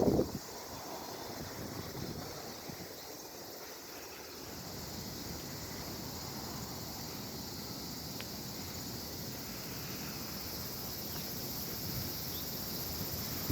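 Steady high-pitched insect chorus over a faint outdoor wind hiss, with no sudden events.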